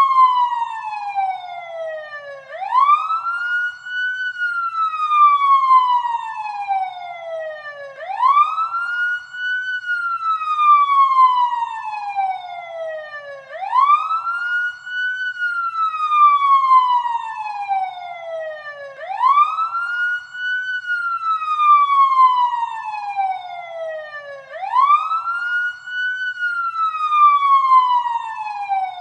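Electronic siren sound effect from the Voice Changer Plus app, wailing in a repeating cycle: the pitch sweeps quickly up, then glides slowly back down, about every five and a half seconds.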